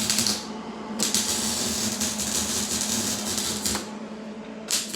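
Welding arc crackling and sizzling, with a steady hum underneath. The arc breaks off twice for under a second, shortly after the start and near the end, and is struck again.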